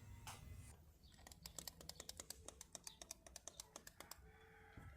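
Faint rapid clicking, several clicks a second, from the push-start button of a 2017 Mitsubishi Xpander being pressed over and over. The engine won't start; the car's cluster panel is warning of a low battery.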